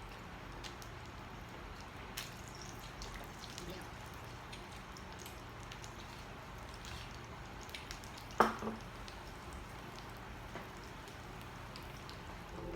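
Faint scattered clicks and taps of a meal at the table, with one louder clink about eight seconds in.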